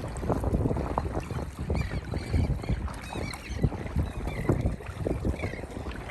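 Wind buffeting the microphone: a gusty, rumbling noise with irregular thumps.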